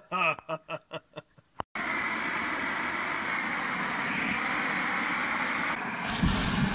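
A man laughing in short bursts, then, after an abrupt cut, a steady even hiss with a low thump about six seconds in.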